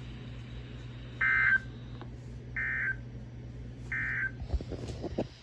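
Three short bursts of buzzy digital data tone, evenly spaced about a second and a half apart, from a NOAA Weather Radio broadcast: the SAME end-of-message code that closes an Emergency Alert System warning. A steady radio hum runs underneath, and a few low knocks come near the end.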